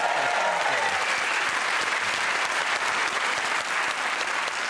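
Studio audience applauding steadily after a guest is introduced, easing off slightly near the end.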